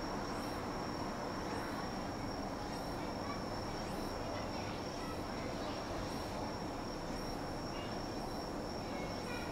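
Insects calling: a steady high-pitched buzz with short rising chirps repeating about once a second, over a steady low background hum.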